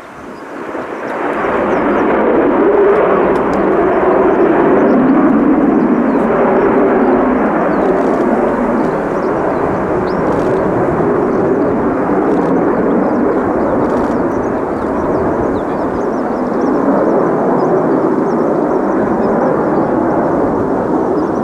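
Military jet aircraft engine noise from a jet flying a touch-and-go circuit: a loud, steady jet rumble that swells up in the first second or two and holds.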